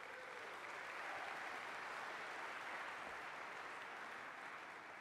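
Audience applauding, building over the first second and then slowly dying down toward the end.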